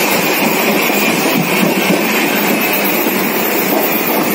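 Moving train heard from inside the carriage at an open meshed window: a steady, loud running noise of wheels and rolling stock.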